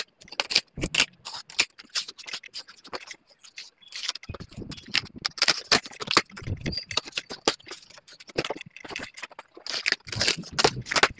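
Speaker packaging being opened: an irregular run of scraping, rustling and clicking as the box and its packing are cut and pulled apart.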